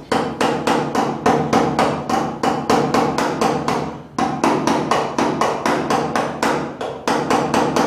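Auto body hammer rapidly tapping a sheet-metal patch panel, about five light, even strikes a second with a brief pause about four seconds in. The panel edge is being tapped down tight against the body for welding.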